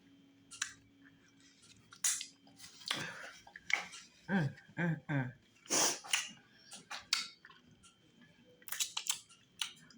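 Mouth sounds of someone eating fufu with okra stew: irregular wet smacking and chewing. Three short hums come close together around the middle.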